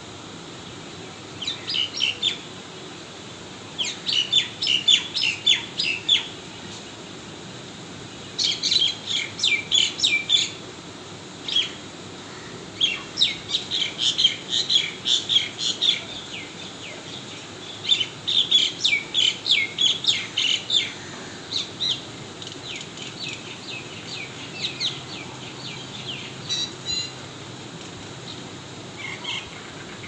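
A bird singing in phrases of fast, repeated high chirps. Each phrase lasts one to three seconds, with short pauses between.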